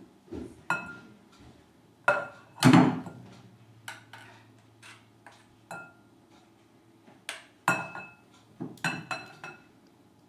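A metal spoon clinks and scrapes against a stainless steel saucepan as zucchini bread batter is scooped out and tipped into a glass mixing bowl. The clinks and knocks come at irregular intervals, many ringing briefly, and the heaviest knock comes about two and a half seconds in.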